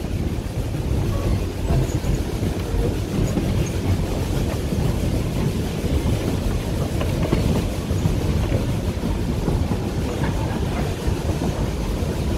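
Puffing Billy narrow-gauge train carriage running along the track, heard from on board: a steady rolling rumble of wheels on rail with faint scattered ticks.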